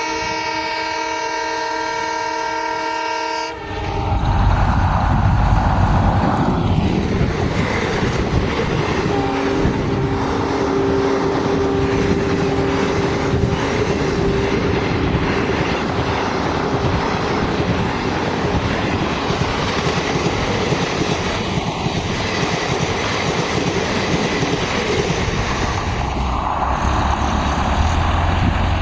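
Air horn of an EMD WDG4 (GT46MAC) diesel locomotive sounding one steady multi-note chord. It cuts off about three and a half seconds in. The train then rushes past, a loud steady roar with its wheels clattering over the rail joints. In the middle a fainter steady two-note tone holds for about ten seconds over the din.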